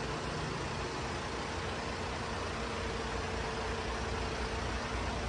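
Hino Dutro truck's diesel engine idling steadily: a low, even rumble with a steady hiss over it.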